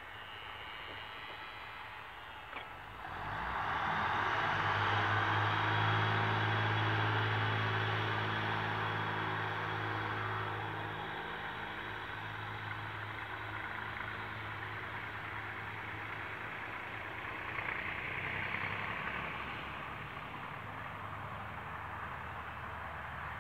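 HŽ series 7121 diesel multiple unit running. Its diesel engine drone and a broad rushing rail noise get suddenly louder about three seconds in as the railcar moves off, then fade gradually as it draws away.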